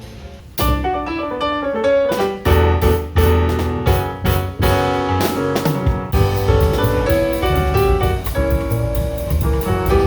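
Jazz trio playing: piano chords and runs over bass and drums, with sharp drum and cymbal hits, starting about half a second in.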